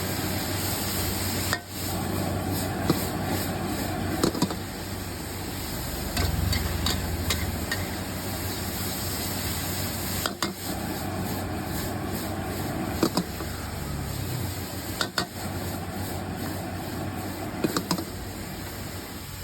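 Street food stall: a steady hum of traffic and cooking noise, broken by scattered sharp clinks and knocks, about seven in all.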